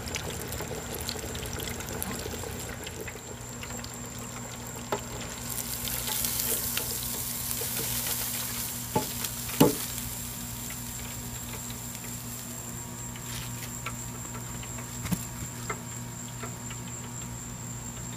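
Battered speckled trout fillets sizzling steadily in the oil of a deep fryer. The sizzle grows louder for a few seconds around the middle, and two sharp knocks come about halfway through as the wire fryer basket is lifted out.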